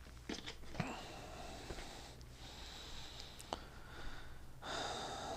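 Soft handling sounds as a man finds his place in a Bible: a few light clicks and faint rustles of paper, with a short breath through the nose near the end.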